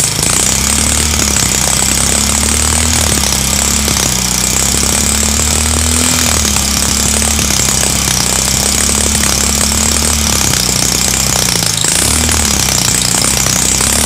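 Honda CB Shine single-cylinder four-stroke engine running with its valve cover off and a loud mechanical knocking noise. Its speed rises and falls slightly. The mechanic puts the noise down to engine oil not reaching the rocker arms in the cylinder head.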